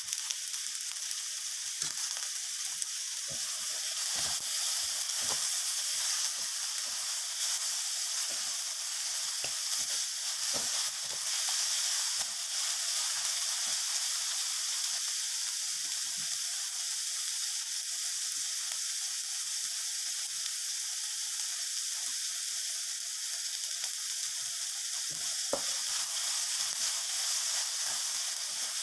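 Sausage slices, diced carrot and chopped chillies and aromatics sizzling steadily in a non-stick wok. A wooden spatula stirs them, with scattered light scrapes and knocks against the pan.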